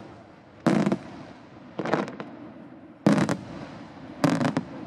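Aerial firework shells bursting in sequence: loud bangs about a second apart, with a cluster of smaller cracks in between, each bang followed by a brief echo.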